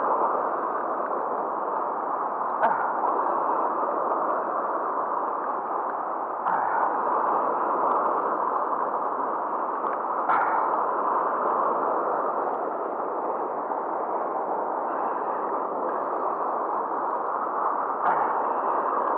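Steady rush of fast, turbulent river water, with four sharp knocks of a hand and arm bumping against the camera.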